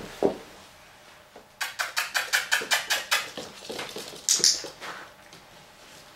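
A Staffordshire bull terrier puppy's claws patter on a parquet floor in a quick run of sharp ticks as it scampers after a plush toy. About four and a half seconds in there is a brief, sharp, high-pitched sound, the loudest moment.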